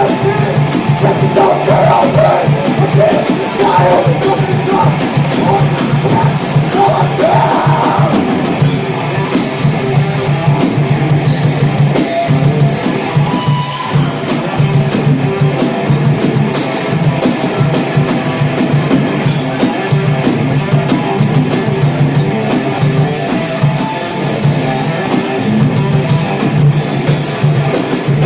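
A live rock band playing heavy, distorted guitars over a busy drum kit with constant cymbal hits, with a few seconds of vocals early on.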